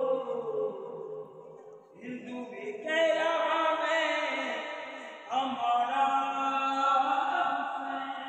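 Devotional vocal chant laid over the pictures: voices holding long, drawn-out notes. One phrase fades about a second in, and new phrases start around two and five seconds in.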